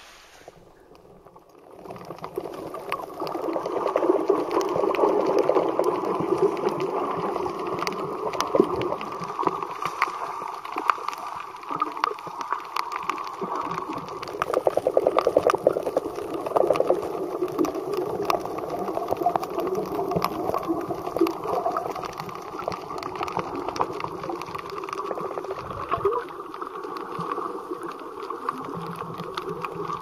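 Underwater sound picked up by a snorkeler's camera: muffled water sloshing and gurgling, with many sharp crackling clicks. It starts about two seconds in, once the camera goes under.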